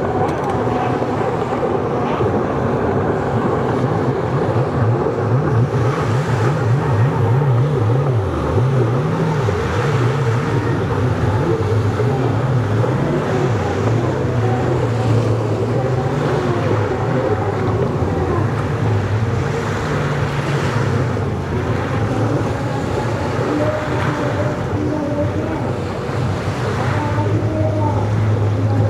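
Several racing jet ski engines running at speed, their pitch rising and falling as riders throttle on and off through the turns.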